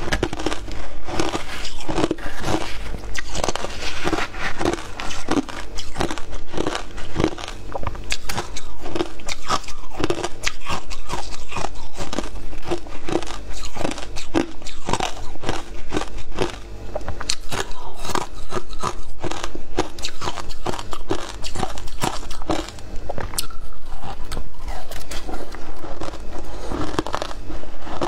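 Chunks of matcha-dusted ice being bitten and chewed, a dense, continuous run of sharp crunches and crackles.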